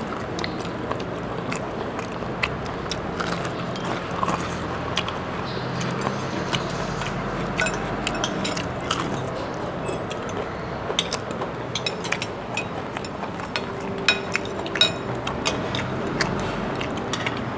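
People eating fried chicken: chewing, with scattered sharp clicks of spoons on plates and bowls, more frequent in the second half, over a steady background hum.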